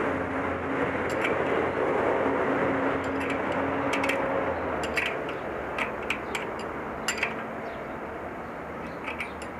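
Steady mechanical noise, like a passing vehicle, that fades about halfway through, followed by scattered sharp metallic clicks and taps from work on the trike's wheel.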